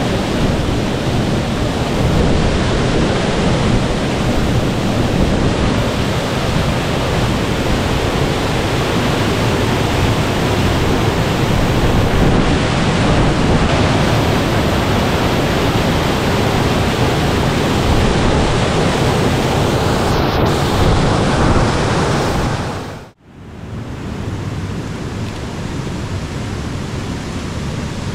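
Rushing creek water, a loud steady rush. It cuts out abruptly near the end and resumes somewhat quieter.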